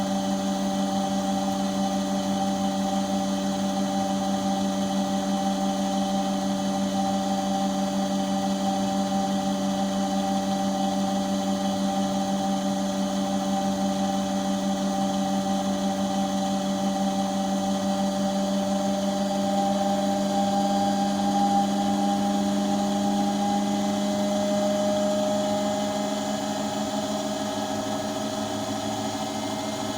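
Washing machine running with a steady hum and whine, one strong low tone with higher tones above it, edging slightly up in pitch in the second half. This is the odd noise the owner hears during the wash cycle.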